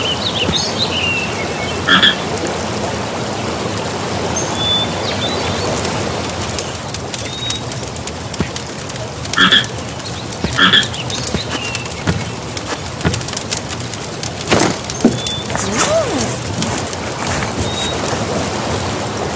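Frog croaking sound effect: three loud croaks, one about two seconds in and two close together near the middle, over a steady rushing hiss like a waterfall. A few short high chirps are heard too.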